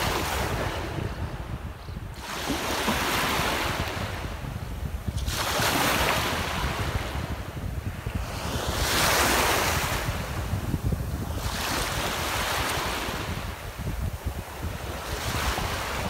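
Small sea waves washing in and out over a sand and shell shoreline, each wash swelling into a hiss and fading, about every three seconds. Wind rumbles on the microphone underneath.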